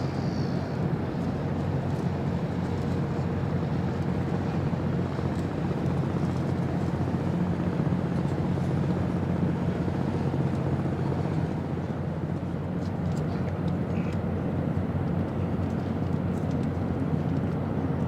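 Steady low engine rumble with a faint steady hum, unchanging throughout.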